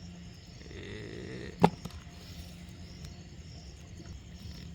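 Crickets chirping in a steady pulsing rhythm over a low hum, with one sharp, loud crack about a second and a half in.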